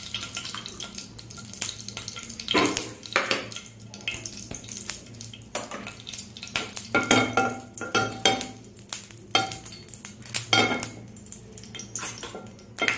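A kitchen utensil knocking, clinking and scraping against a non-stick frying pan at irregular intervals, some clinks briefly ringing, over a faint sizzle of ghee melting in hot oil.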